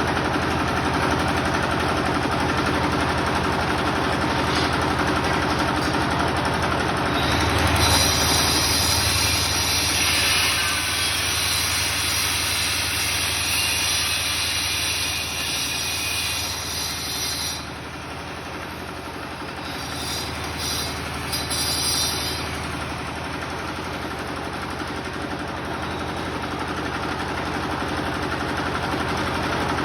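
A generator engine running steadily throughout. About seven seconds in, an electric tile cutter whines through a tile for about ten seconds, and it cuts again briefly a few seconds later.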